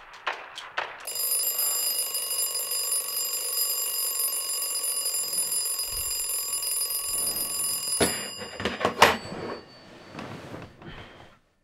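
Alarm clock ringing steadily for about seven seconds, then cutting off suddenly, followed by a few clicks and rustles as it is fumbled off.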